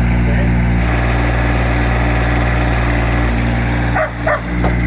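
Motorboat engine running at a steady pitch, loud and close. A brief voice cuts in about four seconds in.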